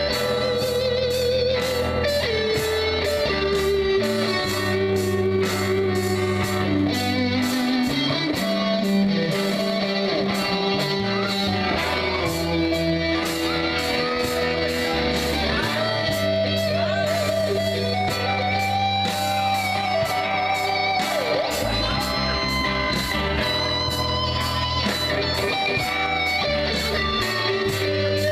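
A live rock band plays an instrumental jam: electric guitars over bass and drums keeping a steady beat, with a lead guitar line bending and wavering in pitch.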